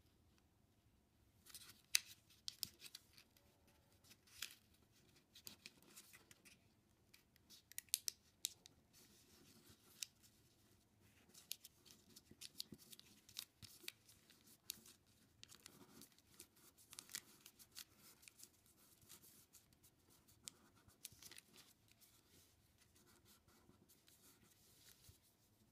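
A sheet of origami paper being folded and creased by hand: faint rustles and short, crisp scrapes as the fingers press down the folds, coming irregularly.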